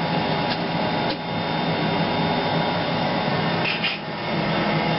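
Steady, even hiss-like noise with a few faint clicks.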